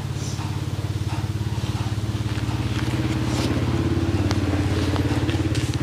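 A motorcycle engine running close by, a steady even pulsing that slowly grows louder.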